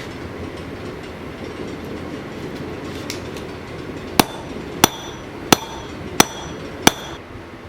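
Hand hammer striking steel on an anvil: five ringing blows, evenly spaced about two-thirds of a second apart, in the second half. A steady rushing noise sits under them and drops away near the end.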